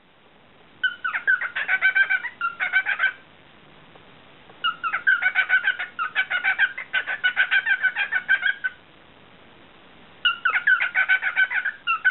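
Cockatiel chattering in three bouts of quick, rapidly repeated chirps and warbles, with short pauses between.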